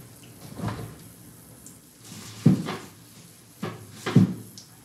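A few short household knocks and bangs, four in all, the loudest about two and a half and four seconds in.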